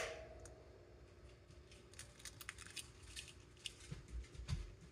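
Faint, scattered light clicks and taps, with the tail of a sharp knock fading out at the very start.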